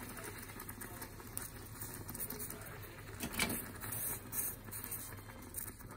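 Stovetop moka pot on a gas flame sputtering and gurgling as brewed coffee is forced up through the spout into the upper chamber, a sign that extraction has started. A steady crackle, with a louder spurt about three and a half seconds in.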